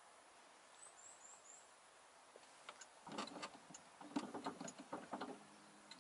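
A small bird gives four quick, high chirps about a second in. From about halfway, a run of irregular clicks and crackles close to the microphone, louder than the chirps.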